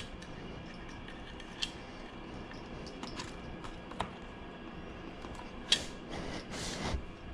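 Scattered small clicks and taps of motorcycle fender eliminator parts being handled and fitted into place, with a sharper click about two thirds through and a brief scraping rustle near the end.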